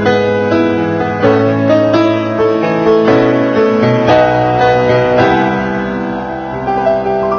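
Background piano music: sustained notes and chords changing about once a second.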